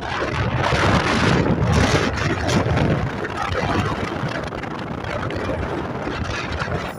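Strong wind buffeting the microphone, a loud rumbling rush that gusts harder about a second in and eases toward the end.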